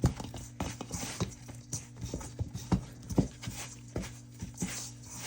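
Hands kneading wet, sticky bread dough, giving irregular soft slaps and squelches about twice a second, over a steady low electrical hum.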